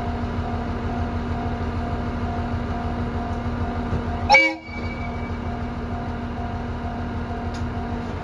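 KiHa E130 diesel railcar idling at the platform with a steady engine hum, and one short horn toot about four seconds in.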